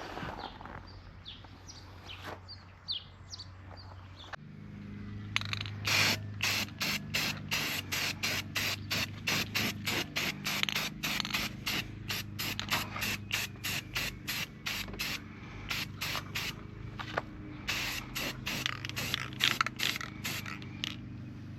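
Aerosol spray paint can spraying in a long run of short hissing bursts, about two a second, starting some five seconds in, over a steady low hum.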